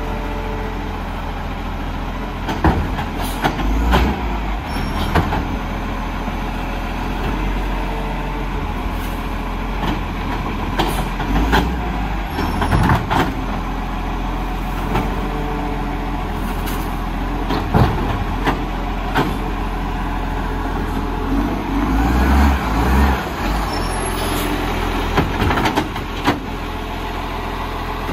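Garbage truck engine running steadily, with irregular knocks and clanks over it.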